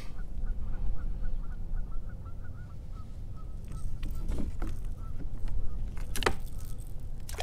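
Geese honking: a quick run of short calls that fades out about halfway through, over a steady low rumble of wind on the microphone. Two sharp clicks near the end.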